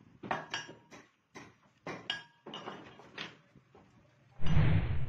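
Cut pieces of thin galvanized sheet metal clinking and rattling against each other as they are handled, in a run of short metallic clinks. Near the end comes a louder rough burst of noise lasting about half a second.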